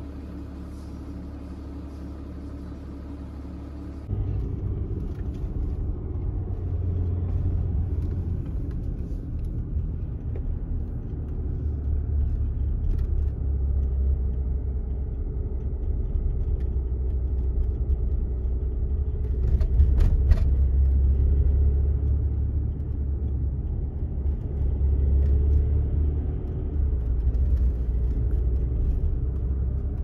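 A car on the move: a steady low rumble of engine and road noise that jumps suddenly louder about four seconds in, with a couple of brief clicks about twenty seconds in.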